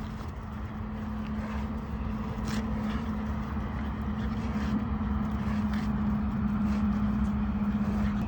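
Steady engine-like rumble with a held hum, slowly growing louder, with a few faint ticks.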